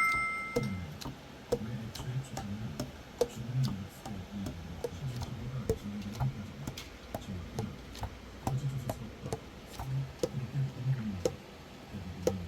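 Keys of a Selmer Mark VII alto saxophone worked by hand, pads clicking shut on the tone holes with short low pops, about two a second and irregular.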